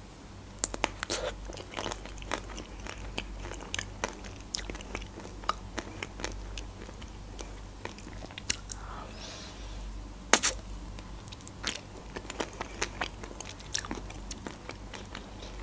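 Close-miked eating sounds of chocolate-coated ice cream: soft biting and chewing with many sharp, irregular wet mouth clicks and smacks.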